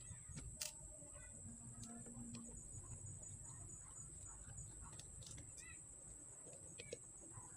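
Faint background of chickens and other birds calling now and then, with scattered small clicks over a steady high-pitched hiss.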